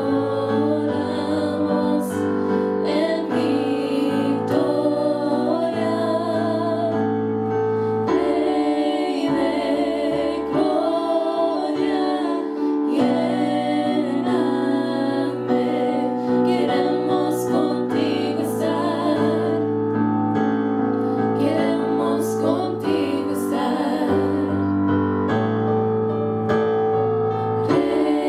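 Three women singing a worship song together into microphones, their held notes wavering with vibrato, over keyboard accompaniment holding long sustained chords.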